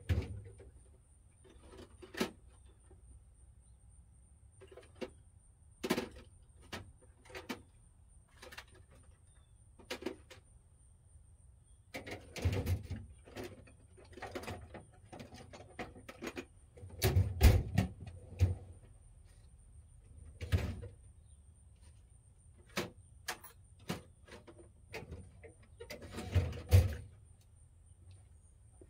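Irregular clanks and knocks of hand tools being rummaged through while hunting for a 15 mm socket. The sharp knocks come singly and in short clusters, with quiet gaps between.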